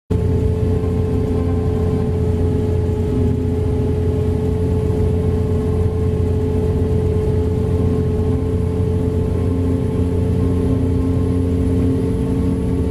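Haul truck's diesel engine running steadily under way, heard from inside the cab, with a constant whine over the low engine drone.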